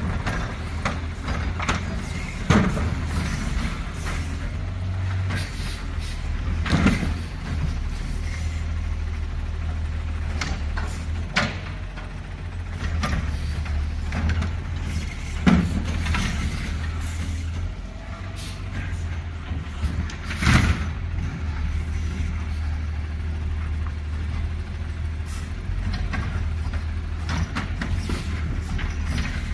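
Garbage truck engine running steadily at a low drone, with a few sharp bangs, the loudest about 15 and 20 seconds in.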